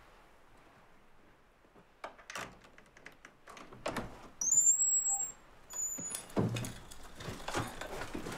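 A door being opened: a few clicks at the latch, then a high hinge squeal about four and a half seconds in, the loudest sound, with a shorter squeak a second later, followed by knocks and rustling as someone comes in carrying a backpack.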